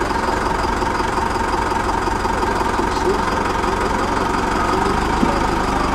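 Coach engine idling steadily with a knocking beat.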